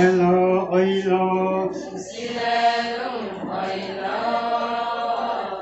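Adi ponung song: a group of voices chanting a slow, sustained line together, with the singing growing fuller and higher about two seconds in.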